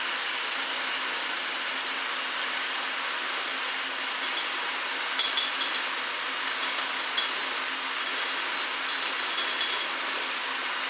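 Steady hiss with a few light metallic clinks and scrapes of a palette knife on the cake stand as whipped cream is spread for the crumb coat. The clinks come about five seconds in and a handful more follow over the next five seconds.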